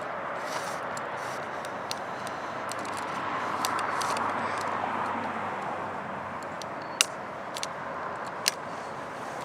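A vehicle passing by: a steady rushing noise that swells for a few seconds in the middle and then fades, with a few sharp clicks.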